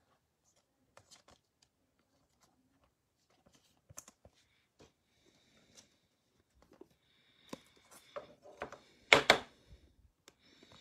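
A trading card being slid into a rigid clear plastic toploader: sparse soft clicks, then a run of plastic scraping and clicking, loudest about nine seconds in.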